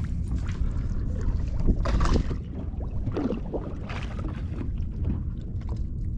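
Wind rumbling on the microphone and water against a small boat's hull, with a few brief knocking or splashing noises about two and four seconds in.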